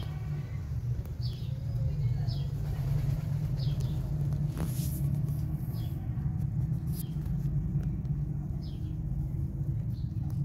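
Cat purring, a steady low rumble while the kittens nurse. Faint short high chirps come every second or so over it.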